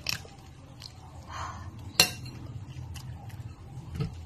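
Clinks on a ceramic plate as shrimp is handled with bare hands. There is a small clink at the start and a sharp, louder one about two seconds in.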